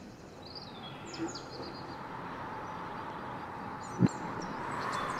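Small birds chirping in short calls over a steady faint outdoor hiss, with one short low thump about four seconds in.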